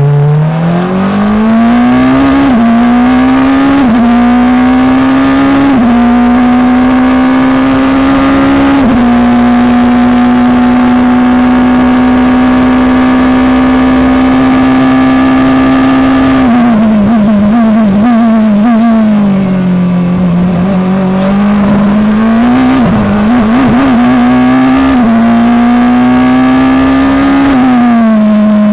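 FIA Formula Two single-seater's turbocharged four-cylinder engine heard onboard at full throttle. It climbs through several quick upshifts, holds steady high revs along a straight, then drops through downshifts under braking about 17 s in. It climbs again through two more upshifts and falls once more near the end.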